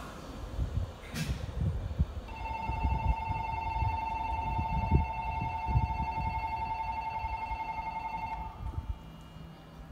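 Electronic platform departure bell ringing steadily for about six seconds, then cutting off: the signal that the train's doors are about to close. Underneath runs the low hum of the electric train standing at the platform.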